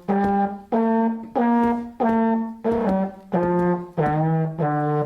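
A brass instrument, of the trombone or horn kind, playing a run of about eight separate held notes, each about half a second long, climbing in pitch and then falling back.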